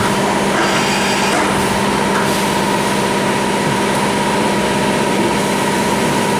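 CNC machine running on an aluminium workpiece: a steady mechanical hum with constant tones over a dense whir, and a brief higher hiss about a second in.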